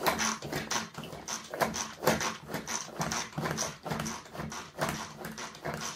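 Manual pull-cord food processor chopping apples: the cord is pulled again and again, each pull a short sharp stroke from the spinning blades and apple pieces inside the bowl, about two or three a second.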